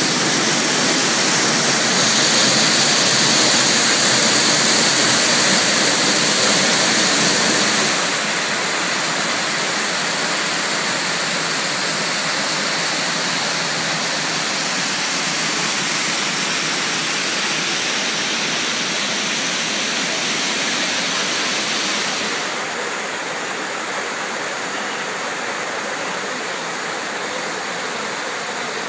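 Small waterfall and creek rushing over rocks: a steady, even rush of water, louder in the first eight seconds and dropping a step in loudness again about 22 seconds in.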